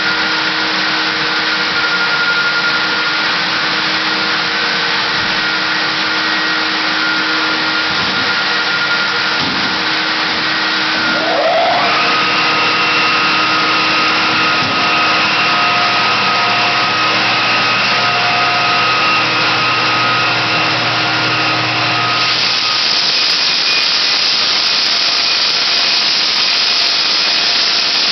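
Dust-extraction vacuum running steadily, then a floor sander's motor starts with a brief rising whine about halfway through. Near the end the sander is worked over the hardwood floor, adding a louder, higher sanding hiss over the vacuum.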